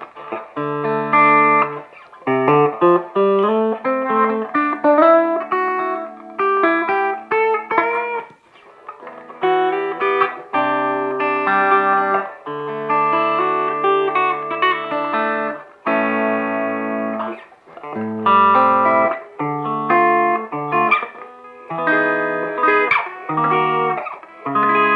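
Electric guitar played through a guitar amplifier set as clean as it will go: strummed chords and picked notes in short phrases, with brief pauses between them.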